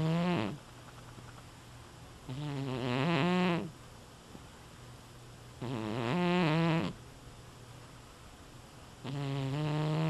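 Sleeping long-haired black-and-white cat snoring. It gives three full snores about three seconds apart, each lasting over a second, and the end of another is heard at the very start.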